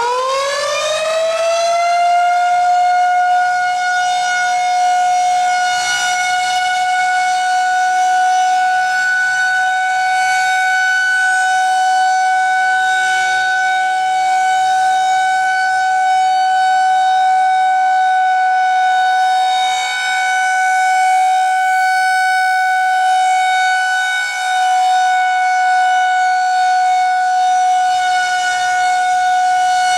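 Federal Signal 2001-130 rotating electromechanical warning siren finishing its wind-up in the first couple of seconds, then holding one steady, loud tone during its monthly test.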